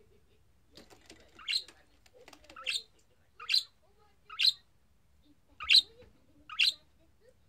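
Budgerigar giving short, sharp chirps, six in all, about one a second.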